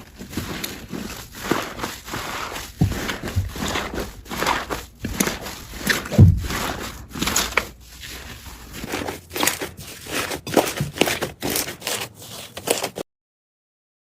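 Slime being squeezed and poked by hands: a rapid, irregular series of squishes and pops that cuts off suddenly near the end.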